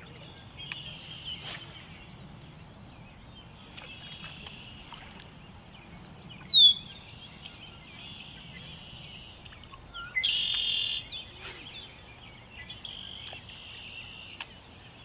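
Songbirds singing: repeated trilling songs, with one loud, short falling whistle about six and a half seconds in and a loud buzzy song lasting about a second around ten seconds in, over a faint low rumble.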